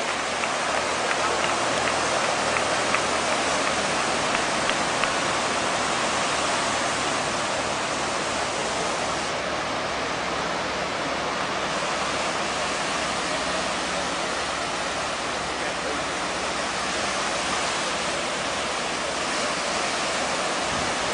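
Small waves breaking and washing onto the beach: a steady, even rushing noise.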